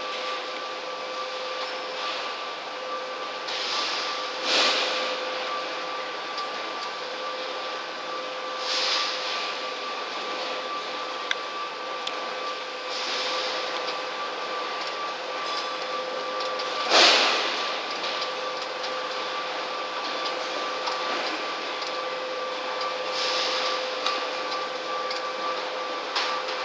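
Steady machine hum from the hull-cleaning work at a moored fishing boat, carrying two even tones, with a short rushing surge every four seconds or so; the loudest surge comes a little past halfway.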